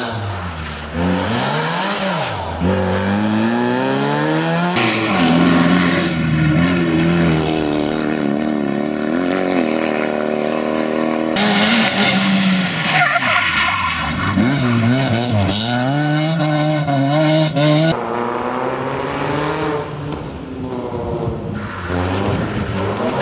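Rally cars, an Opel Astra and then a Peugeot 206, driven hard on a tarmac stage: engines revving high and dropping through gear changes, with tyre squeal. The sound cuts abruptly from one car to the next twice.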